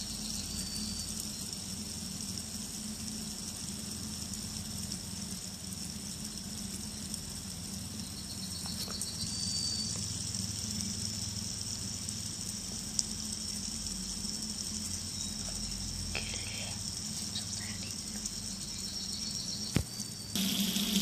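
Fidget spinner spinning on its bearing: a steady high whir over a low hum, with a couple of sharp clicks.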